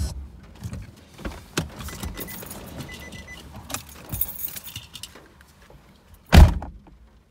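Car keys jangling and clicking as they are taken from the ignition, with small rattles and rustling as the driver gets out and a faint electronic chime. About six seconds in, the car door slams shut with a single heavy thump.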